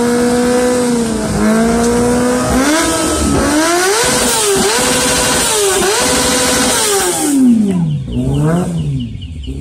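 Motorcycle engine revved hard, held at high revs, then blipped down and up several times before the revs fall away, with one last short rev near the end.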